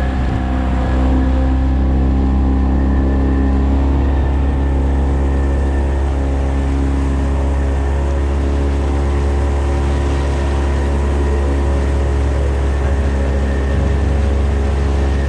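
Outboard motor of a small fiberglass skiff running steadily as the boat moves along, with water rushing against the hull. Its pitch shifts slightly a couple of times.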